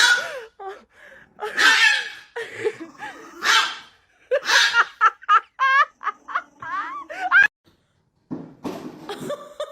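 People laughing in loud, breathy bursts, with quick high wavering giggles in the middle and a short pause near the end.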